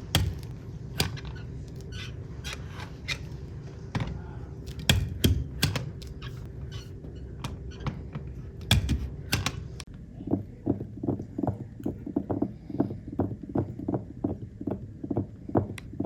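A series of sharp, irregular clicks and taps, then from about ten seconds in a steady run of softer knocks, about two to three a second.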